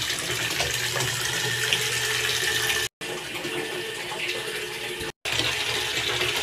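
Water running from a tap into a bathtub, a steady rush that breaks off twice for an instant at edit cuts.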